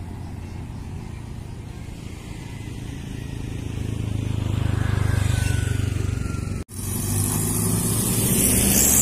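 Motor vehicle engine running close by, growing louder toward the middle. The sound cuts out for an instant near seven seconds, then engine and road noise go on, louder again near the end.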